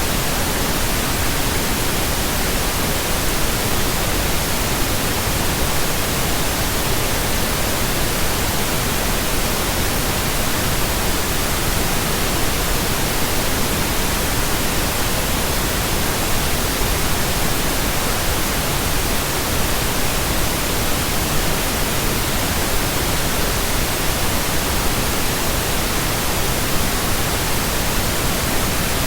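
Steady electronically generated pink noise: an even, unchanging hiss with no tones or breaks in it.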